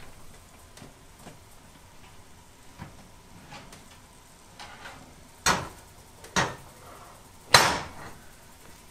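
A glass pie dish being handled out of the oven: faint clicks and rattles, then three sharp clunks near the end, the last the loudest, as the dish knocks on the metal oven rack and is set down on the stove's grates.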